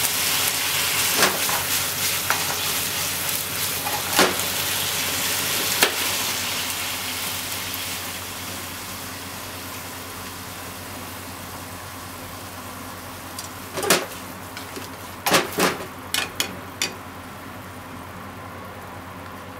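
Pork, shimeji mushrooms and onion sizzling in a hot frying pan as they are stir-fried with chopsticks, with sharp taps of the chopsticks against the pan. The sizzle slowly dies down over the first half, and a quick cluster of taps comes in the last few seconds.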